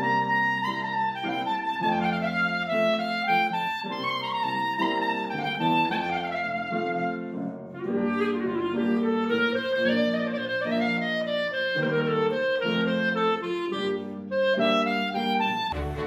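Clarinet playing a flowing melody over piano accompaniment in steady repeated chords, with a brief break in the phrase about eight seconds in.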